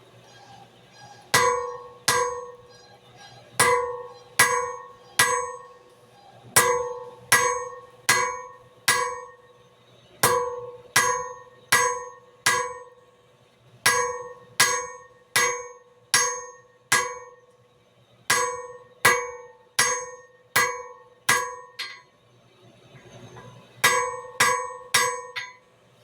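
Hand hammer striking a hot drill bit on an anvil to flatten it, each blow ringing briefly. The blows come in runs of two to five, about one a second, with short pauses between runs, and quicken near the end.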